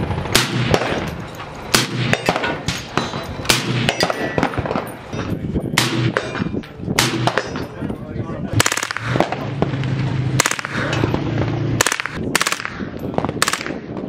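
Gunshots on a busy firing line: single sharp rifle shots at irregular intervals, roughly one or two a second and sometimes two in quick succession, including a scoped rifle fitted with a muzzle brake fired from a bench rest.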